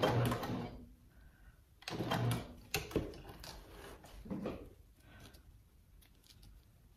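Janome HD9 sewing machine stitching through webbing, stopping under a second in and running again for a short burst about two seconds in. After that come a few sharp clicks and soft handling knocks.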